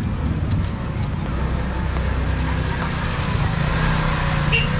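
A motor vehicle's engine running close by, a steady low hum, over the even hiss of heavy rain. A brief high chirp sounds near the end.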